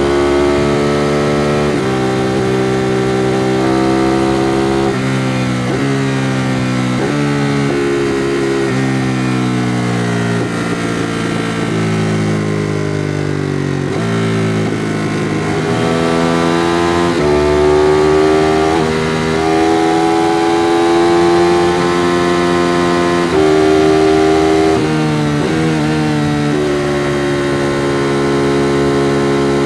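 2016 Ducati Monster 821's L-twin engine through its stock exhaust, ridden under way. The engine note pulls up and drops sharply at each gear change, several upshifts in quick succession. In the middle it winds down in pitch as the bike slows, then pulls up through the gears again.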